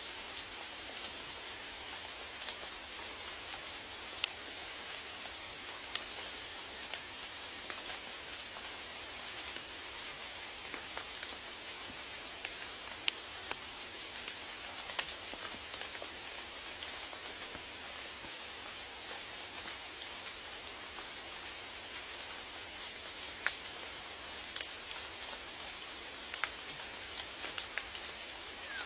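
Steady rain falling, a continuous hiss with scattered louder individual drops ticking on a surface.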